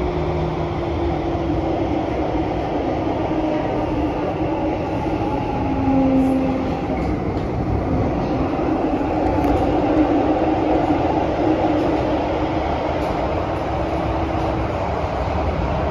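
Cabin noise inside a Kawasaki–CRRC Sifang CT251 metro train running through a tunnel: a steady rumble of wheels and running gear with faint motor tones that come and go at slightly different pitches.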